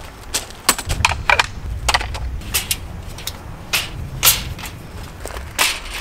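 Footsteps crunching on gravel, with irregular clacks and knocks as folding camp furniture is carried and set out.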